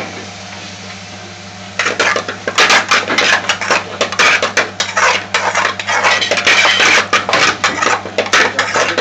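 A metal spoon scraping and clanking against a metal frying pan as aubergine pieces in sauce are stirred. It starts about two seconds in and goes on as a fast, uneven run of strikes.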